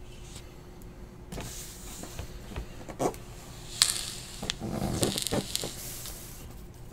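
Cardboard case of trading-card boxes being handled: rustling and scraping with a few sharp knocks, starting about a second in.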